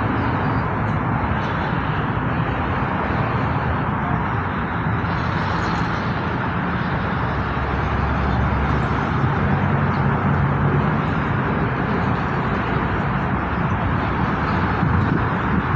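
A passing train running steadily: a low engine hum under the rolling noise of wheels on the rails.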